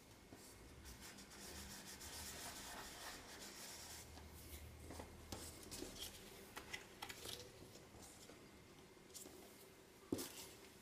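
Fingers rubbing a freshly glued paper door flat onto a paper tag: a soft, dry scraping for the first four seconds or so, then light paper rustles and ticks as scraps are handled, with a short tap about ten seconds in.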